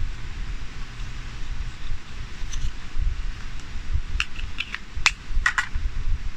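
Wind buffeting the microphone as a low rumble, with a quick cluster of small clicks and snips from about four seconds in as dental floss is handled for the lure.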